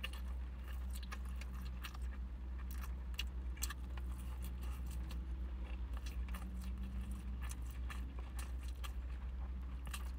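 A person chewing a mouthful of fried chicken, with many small clicks and taps of chopsticks against a plastic bento tray, over a steady low hum inside a car.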